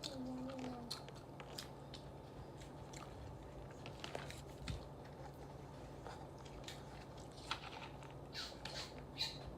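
Close-miked chewing and lip smacking of a person eating a bacon, egg and jelly breakfast sandwich. Soft wet clicks come throughout, with a few louder smacks near the end.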